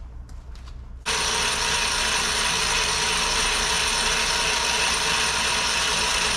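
A few faint clicks, then about a second in a loud, steady mechanical whir with a strong hiss starts abruptly and runs on unchanged.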